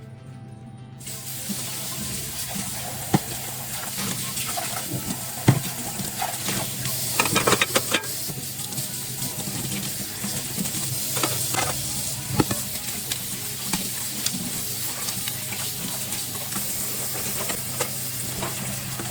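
Kitchen tap running water into the sink, starting about a second in, while dishes are washed, with sharp clinks of dishes and utensils, a quick cluster of them a few seconds in.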